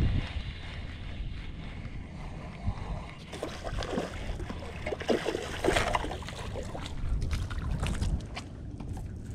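A hooked fish splashing irregularly at the water's surface while being played on a spinning rod, the splashes bunched from about three seconds in. Wind rumbles on the microphone throughout.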